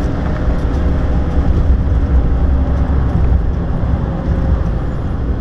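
Ford Ranger 3.0 turbo diesel pickup cruising: a steady low engine drone and road rumble heard inside the cab.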